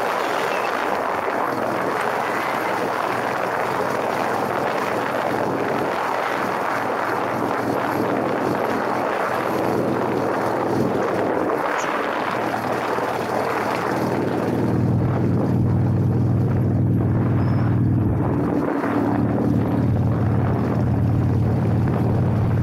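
Motorcycle riding at speed: a steady rush of wind noise on the microphone. About two-thirds of the way through, the engine's low, even note comes to the fore, breaks off briefly a few seconds later, then picks up again.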